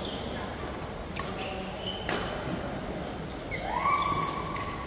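Badminton doubles rally: a few sharp racket strikes on the shuttlecock, about a second apart, with short squeaks of shoes on the court floor between them. A drawn-out squeal rising in pitch comes near the end.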